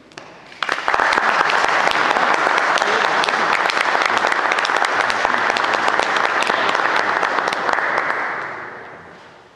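Audience applauding at the end of an accordion performance: clapping breaks out about three-quarters of a second in, holds steady, and fades away over the last second or so.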